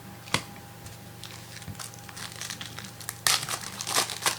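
Crinkling and rustling of plastic trading-card packaging being handled, with a sharp click about a third of a second in and a louder run of crinkles near the end.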